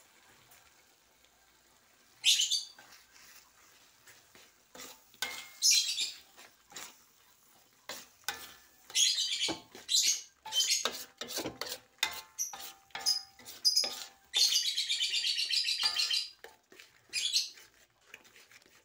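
Metal spatula stirring and scraping thick peanut sauce as it is sautéed in a wok. The scrapes come in short, uneven strokes, with one longer scrape about three-quarters of the way through.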